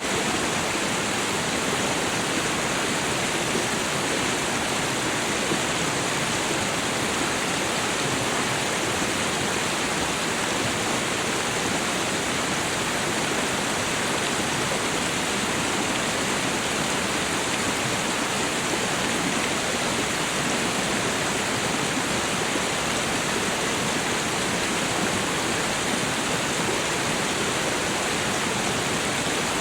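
Waterfall: falling water making a steady, even rush with no change throughout.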